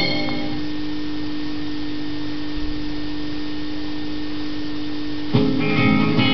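Television broadcast sound: a single steady held tone over hiss, then guitar music starts about five seconds in.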